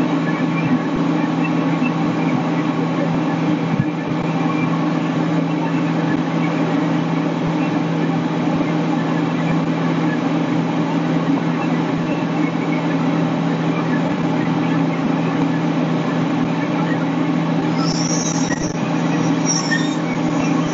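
Fire truck's diesel engine running steadily, a constant low drone, with a couple of brief high squeaks near the end.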